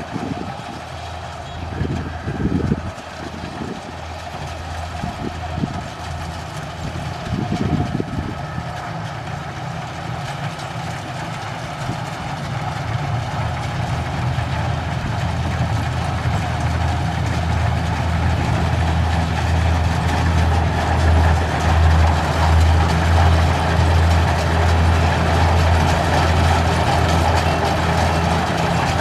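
Diesel engine of a Kubota combine harvester running steadily, getting louder from about halfway through, with a few low knocks in the first several seconds.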